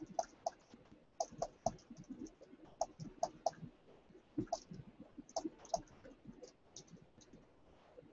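Typing on a computer keyboard: faint, irregular key clicks, a few a second, that stop shortly before the end.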